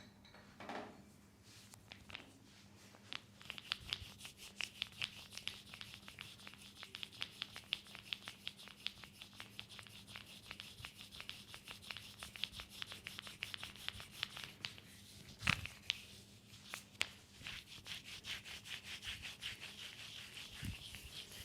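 Hands rubbing oiled skin in quick, repeated massage strokes, several a second, with one sharper slap or click about two-thirds of the way through.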